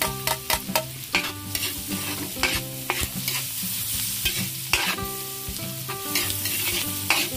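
Chopped red onion and garlic sizzling in hot oil and margarine in a metal wok, with a metal spatula scraping and clinking against the pan again and again as they are stirred.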